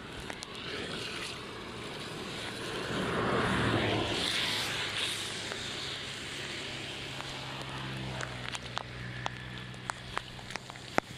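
Flood water rushing and splashing, swelling about three seconds in, with a low steady hum in the second half and scattered sharp knocks.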